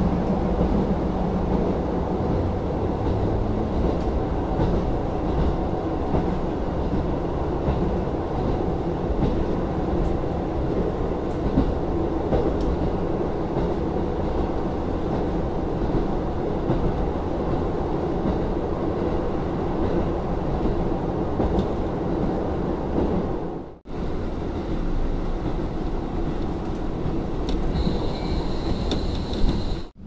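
KiHa 40 diesel railcar under way, its engine and wheels on the rails making a steady running noise. The sound drops out for a moment about three-quarters of the way through. Near the end a high steady whine joins in.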